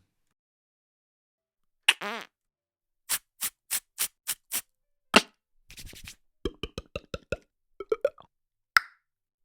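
Snoopy's cartoon vocal sound effects: after about two seconds of silence, a brief warbling sound, then a run of six quick pops, a sharp single hit, a rapid string of short knocks, and one last short blip near the end.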